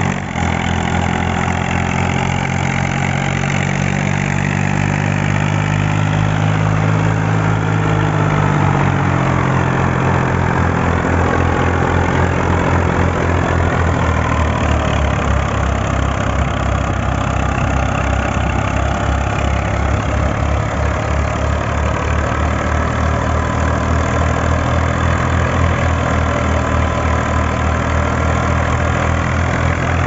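A Fiat 480 tractor's three-cylinder diesel engine runs steadily under load, driving a wheat thresher through its PTO, with the thresher's drum running with it. About nine seconds in, the engine note drops in pitch and then holds steady.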